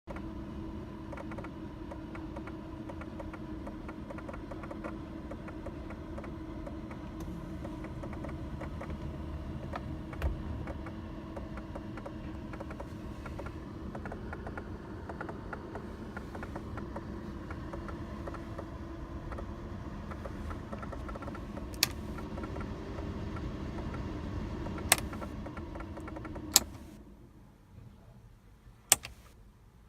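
Electric A/C fan motor in a Mercedes-Benz W124 running with a steady hum and a fast, fine ticking or rattling, a strange noise the owner suspects comes from the fan motor. It shuts off about 27 seconds in, and a few sharp clicks follow.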